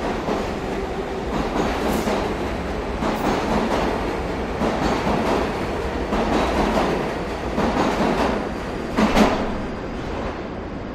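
New York City subway train running through the station, its cars clattering over the rail joints in a run of short knocks, with one louder clack about nine seconds in. The noise then starts to fade as the train pulls away.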